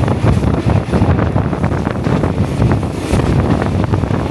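Passenger train running, heard from on board: a loud, steady rumble with dense rattling and clatter, and wind buffeting the microphone.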